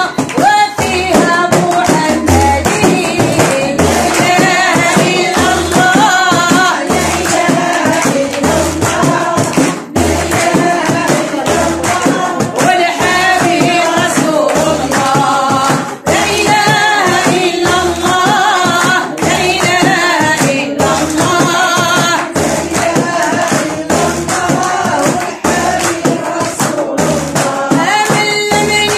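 A woman singing a Moroccan devotional chant in praise of the Prophet, accompanied by hand-held frame drums beaten in a steady rhythm.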